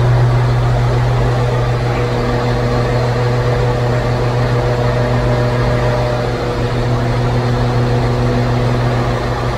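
Diesel engine of a Kirovets K-744 tractor, just rebuilt after a major overhaul, running steadily with a constant deep hum, heard from inside the cab.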